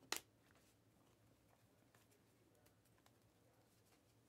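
A Panini Mosaic basketball card flicking off the front of a hand-held stack, one sharp click just after the start. Then near silence with a few faint ticks of cards sliding.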